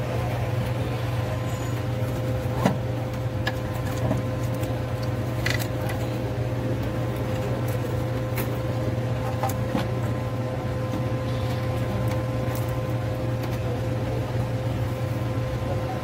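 Steady low mechanical hum with a thin constant tone, and a few light clicks and taps from hands handling parts in an engine bay.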